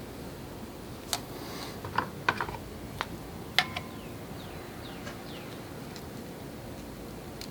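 Several sharp clicks and light taps of small parts being handled, most likely injector retaining clips and fuel-rail hardware, spread over a few seconds. A few faint short falling chirps follow in the middle.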